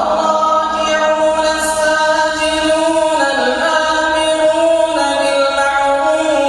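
Melodic Quran recitation: a single unaccompanied voice chanting, holding long drawn-out notes with slides between them and stepping down in pitch about three seconds in.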